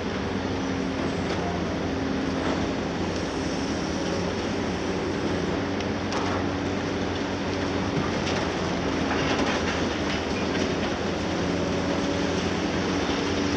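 Diesel engines of heavy demolition excavators running steadily, including the long-reach Liebherr 954. Concrete crunches and debris clatters down several times as the attachment breaks up the top of a wall.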